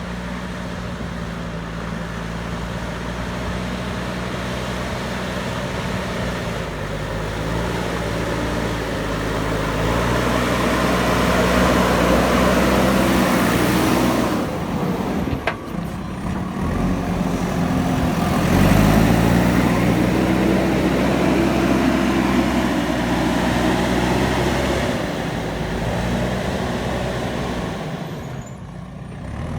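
JCB backhoe loader's diesel engine running under load, its revs rising and falling as it works. The engine swells louder toward the middle, drops briefly with a sharp click about halfway through, then revs up again and eases off near the end.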